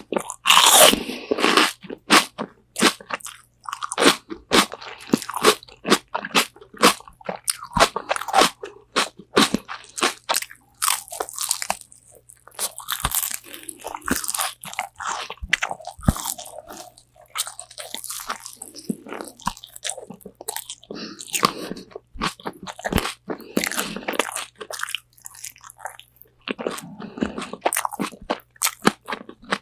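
Close-miked biting and chewing of crunchy BonChon Korean fried chicken wings: a dense, irregular run of sharp crackly crunches, coming in clusters with short gaps between.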